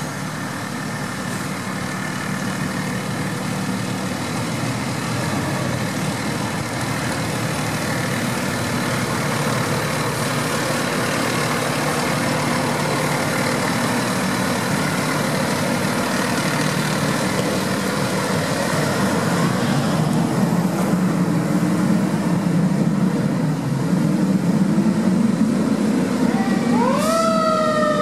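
2016 E-One Cyclone II fire engine's diesel engine running as the truck pulls away and drives off, slowly getting louder. About a second before the end its siren starts, rising quickly and then falling slowly.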